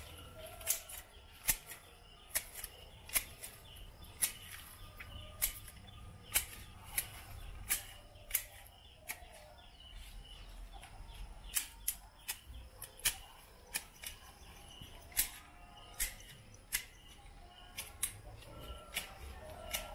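Manual two-handed hedge shears snipping through hedge twigs and leaves: a sharp click each time the blades close, irregular, about one a second.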